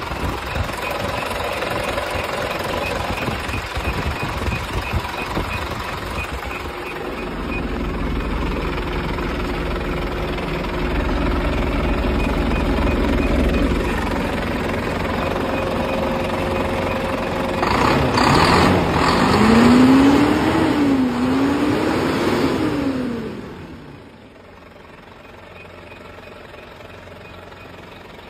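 UD Trucks 10.8-litre inline-six diesel engine running with a clattering idle. A little past the middle it is revved up and down twice, its pitch climbing and falling each time. It then settles back to a much quieter idle near the end.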